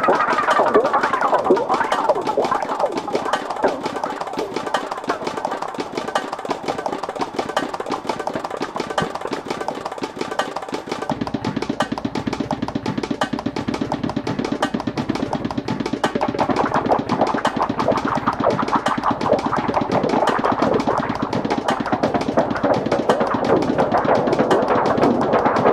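Electronic music from a live set: a dense, rapid clicking beat under shifting synth tones. About eleven seconds in, a deep bass layer comes in.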